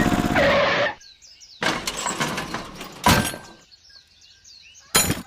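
A small motor runs with a steady rhythmic hum that cuts off suddenly about a second in. Then birds chirp, broken by a few abrupt bursts of noise.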